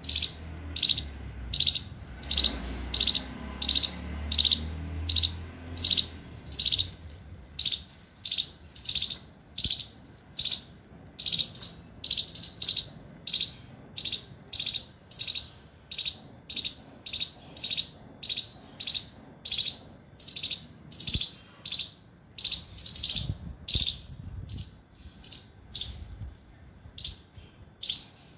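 Indian palm squirrel giving its sharp, high chip call over and over, about two calls a second, in a steady rhythm.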